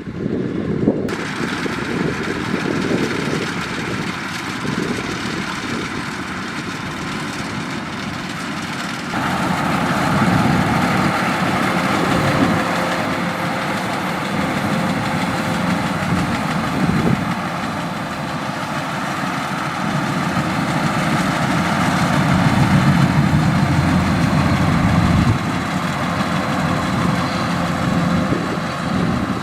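Kubota DC-105X rice combine harvester running steadily: its diesel engine together with the harvesting and threshing machinery. The sound shifts abruptly about a second in and again about nine seconds in, growing louder with more high whirr after the second change.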